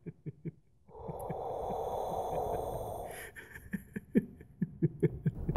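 Experimental sound-design soundtrack: quick, uneven ticking pulses, about four or five a second, fade out at the start, give way to a rushing noise with faint high steady tones for about two seconds, and then start again.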